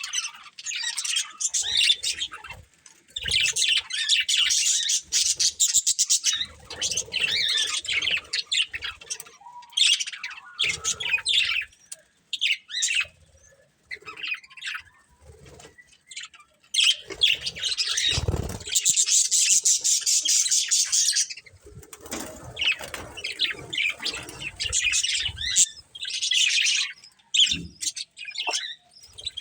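Pet budgies chattering and warbling in long runs of rapid, high chirps with a short quieter gap midway. There is a brief low thump about two-thirds of the way through.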